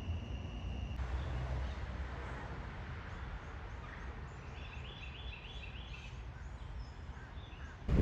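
Outdoor ambience with birds chirping. A bird sings a quick run of about half a dozen repeated notes around the middle. The first second carries a steady high-pitched tone, like night insects, that cuts off abruptly.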